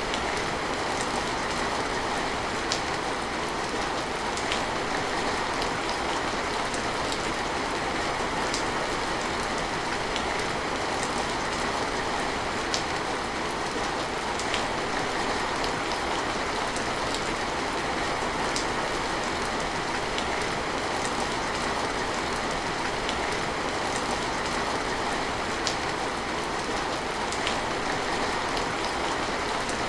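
Steady rain falling, an even hiss with scattered individual drops ticking on a hard surface.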